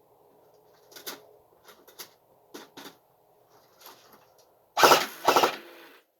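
Two short bursts of fire from an A&K M249 airsoft electric gun about five seconds in, each about half a second of very rapid clicking, after several fainter clicks and knocks.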